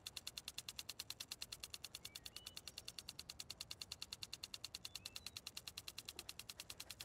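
Garden lawn sprinkler ticking fast and evenly, about nine ticks a second, with a few faint bird chirps.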